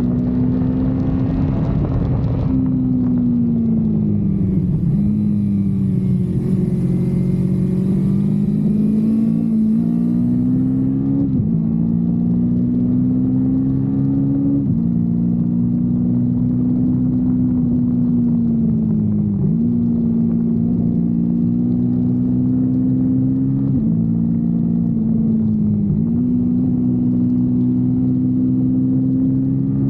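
Kawasaki Versys X 250's parallel-twin engine heard from the rider's seat while riding, its note rising and falling with the throttle, with several brief sudden dips in pitch. Wind rush over the microphone in the first couple of seconds.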